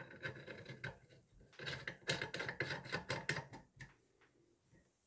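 Faint clicks and scrapes of a metal PUR faucet-filter adapter being threaded by hand onto a kitchen faucet spout.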